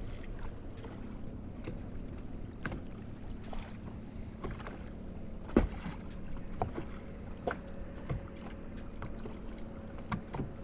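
Small fishing boat sitting on a lake: a faint, steady hum with a few short, light knocks on the hull, the loudest about halfway through.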